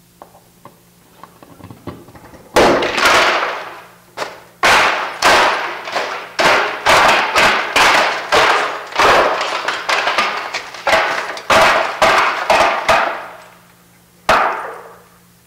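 Pane of window glass with no security film shattering under a center punch about two and a half seconds in, after a few faint clicks. It is followed by a rapid run of sharp glass crashes, about two a second, as the broken glass is struck out of the frame and falls, with one last crash near the end.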